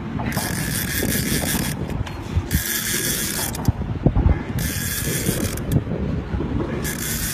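Saltwater fishing reel working against a hooked fish, a ratcheting buzz that comes in bursts of about a second, several times over, with low wind rumble on the microphone underneath.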